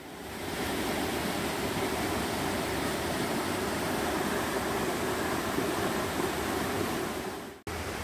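Mountain stream rushing over rocks and small cascades, a steady rush of water. It fades in at the start and breaks off abruptly for an instant near the end.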